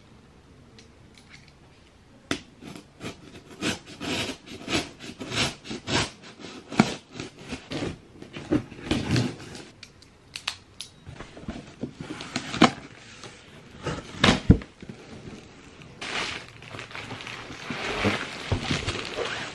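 A knife slitting the packing tape on a cardboard shipping box, a quick run of rips and scrapes starting about two seconds in, with a few louder knocks of cardboard later. Near the end the flaps are pulled open and plastic wrap crinkles.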